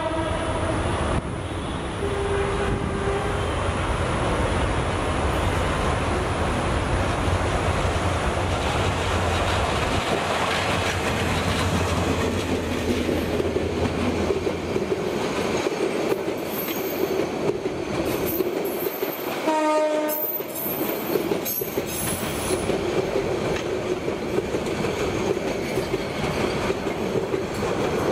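Tista Express passenger train of Bangladesh Railway passing close by. The diesel locomotive's deep rumble drops away after about ten seconds, leaving the coaches rolling and clattering over the rail joints. A train horn sounds briefly near the start and again about twenty seconds in.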